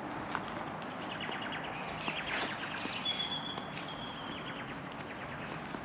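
Small birds chirping outdoors, with a rapid trill about two seconds in and a held high whistle around the middle, over a steady background hiss.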